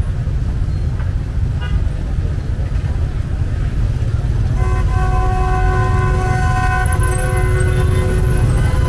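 Steady low rumble of road traffic, with a vehicle horn sounding one long, steady note from about halfway through.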